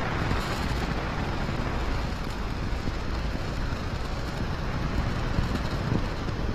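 The SLS core stage's four RS-25 hydrogen-oxygen rocket engines firing in a static hot-fire test: a steady, unbroken low rumble with a hiss over it.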